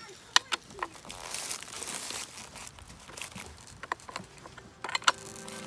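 Scattered sharp clicks and rustling as hands handle a Stihl chainsaw's bar and chain on a bed of dry leaves. The engine is not running.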